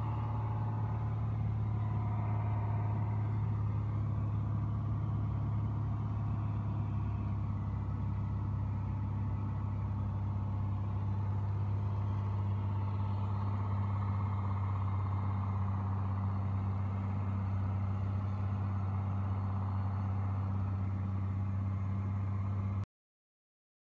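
Piper Dakota's six-cylinder Lycoming O-540 engine and propeller droning steadily in flight, heard inside the cabin. The sound cuts off abruptly near the end.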